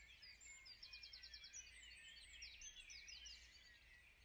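Faint birdsong: several small birds singing, with quick high trills and chirps.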